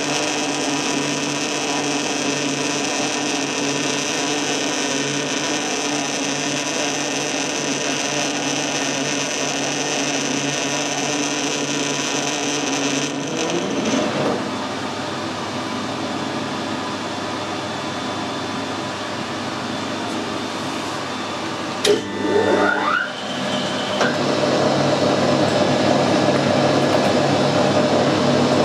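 Metal lathe running under power, screw-cutting a 19 TPI thread with a carbide threading insert: a steady whine of several tones from the motor and gears. About halfway it drops a little; about three-quarters through there is a click, then a rising whine as the spindle speeds up again, and it runs on steadily, a little louder.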